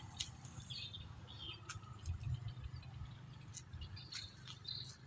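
Small birds chirping in short, repeated calls over a steady low rumble.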